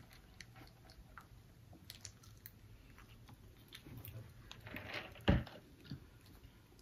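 Quiet chewing and small mouth noises of people eating, with scattered faint clicks and one short thump about five seconds in.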